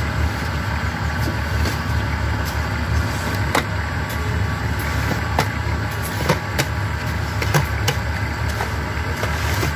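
Cement brick (concrete block) making machine running with a steady low drone, with sharp metallic clanks at irregular intervals from the steel feed box and mould.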